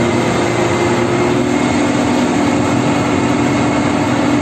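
Concrete mixer truck's diesel engine running steadily as it turns the drum to discharge concrete down the chute.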